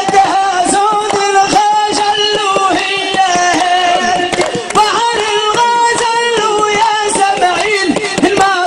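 A man singing long, wavering held notes into an amplified microphone, over a steady hand-drum beat.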